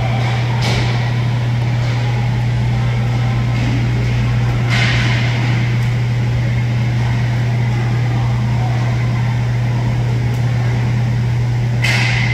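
Steady low hum of the rink's large ventilation fans, with two brief scraping rushes from skates and sticks on the plastic floor, about five seconds in and near the end.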